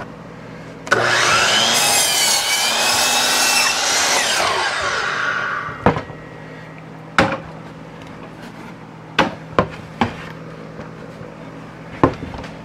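DeWalt sliding miter saw starting suddenly about a second in, cutting through a wooden board for about four seconds, then winding down with a falling whine. Several short, sharp knocks follow as the wood is handled on the saw table.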